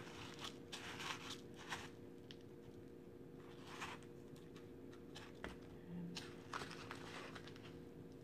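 Faint scratchy rustles and light taps of hands pressing and rolling chicken in dry breadcrumbs in a plastic bowl, coming in scattered short bursts over a steady low hum.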